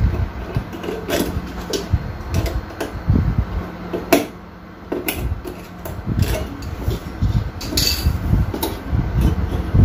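Scattered clicks, taps and scrapes of plastic and metal parts being handled as the heating lamp is unclipped from a countertop oven's lid, with a sharp click about four seconds in. A low steady hum runs under the first half.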